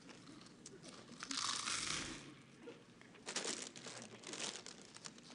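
A snack-chip bag crinkling as it is handled, in two bouts of about a second each: one a little over a second in, the other just after three seconds in.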